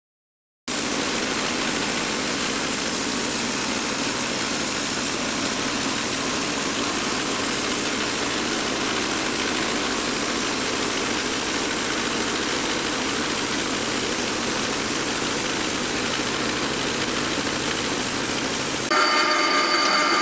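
Portable band sawmill running steadily as its blade saws a thin slab off the top of a log. The sound starts abruptly about a second in and changes near the end, with a few steady tones coming in.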